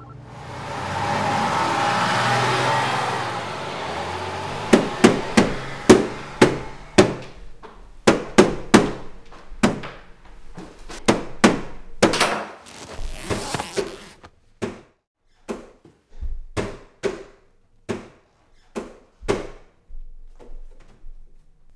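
A hand repeatedly smacking the side of a CRT television that won't turn on: sharp thumps, at first in quick clusters, then about one or two a second and softer toward the end. A brief rushing noise comes before the first thumps.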